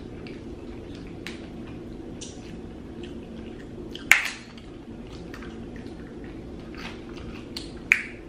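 Small wet clicks and smacks of people eating fried chicken with their hands, with two sharp, louder smacks, one about four seconds in and one near the end, over a steady low hum.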